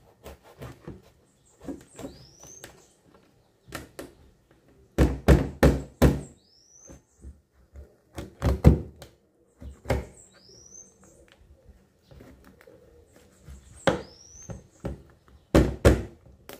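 Knife knocking and scraping on a plastic cutting board while a plucked pigeon carcass is cut open, with loud clusters of thunks a few times. A bird's short rising chirp sounds four times, about every four seconds.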